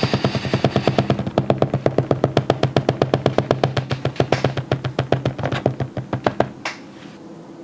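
Music: a fast, even drum beat of about eight hits a second over a held low note, cutting off abruptly about six and a half seconds in.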